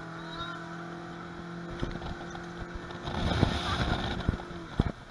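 Motorboat engine running at a steady pitch under way, with water and wind rushing past the hull and knocks of the hull on the water. The rushing gets louder for about a second starting three seconds in.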